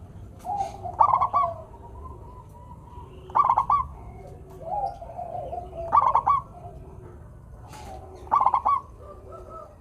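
Zebra doves (perkutut) cooing. A quick phrase of several short coos repeats about every two and a half seconds, four times, with softer, lower coos in between.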